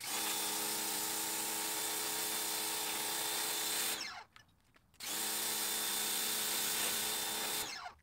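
Ryobi electric pressure washer running in two bursts of about four and three seconds, its motor and pump humming under the hiss of the water jet as it blasts a seatbelt strap on concrete. Each time the trigger is let go the motor winds down with a falling whine.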